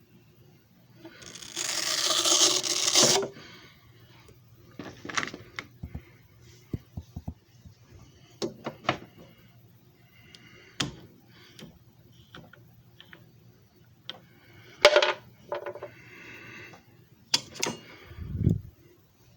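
Handling noise: scattered sharp clicks, taps and clatter, with a louder rush of noise lasting about two seconds early on and a dull thump near the end.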